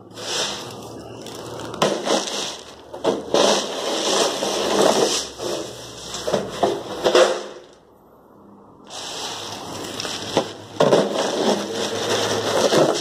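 Expanded clay pebbles poured into a plastic filter barrel: a dense rattling crackle of many small pebbles landing, coming in uneven surges, with a short pause about two-thirds of the way through.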